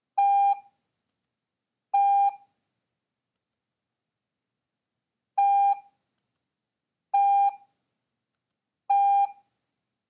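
Morse code practice tone sending the letter T five times: five single dahs, each a steady beep just under half a second long. They come about two seconds apart, with a longer pause after the second.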